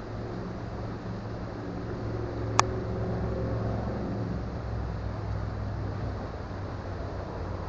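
Creek water running steadily under a low, steady hum, with one sharp click about two and a half seconds in.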